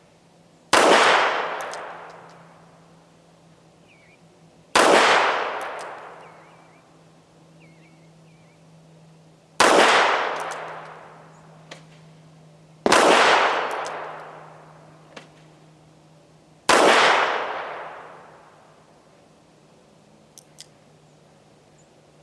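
Five .38 Special shots from a Smith & Wesson Model 36 snub-nose revolver, fired slowly single action a few seconds apart. Each sharp report rings out for about a second and a half. Small clicks come between the later shots, and two come near the end.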